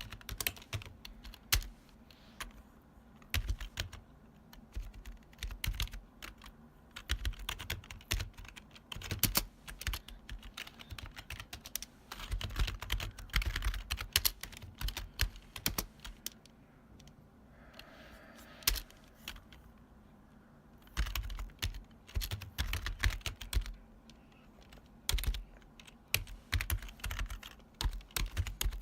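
Typing on a retro keyboard with long key travel: strong clacky keystrokes in fast runs broken by short pauses.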